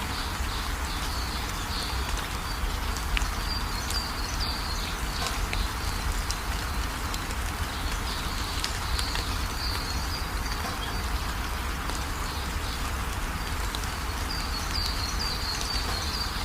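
Steady drizzle falling, with fine patter of drops. Small birds chirp in short high runs several times over the rain.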